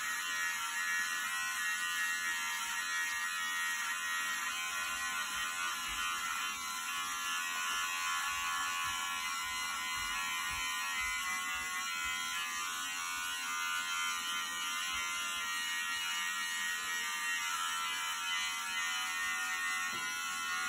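Electric beard trimmer running steadily as it is worked up the back of the head and neck, cutting short hair.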